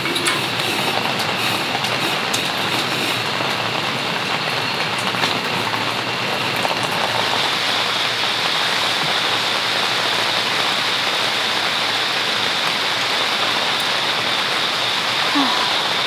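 Steady rain falling fairly hard on a tent pitched without its rainfly, heard from inside the tent.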